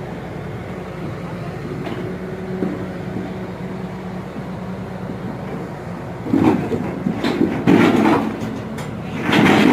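Excavator's diesel engine running steadily. From about six seconds in, several louder, rougher bursts of noise come over it as the machine works.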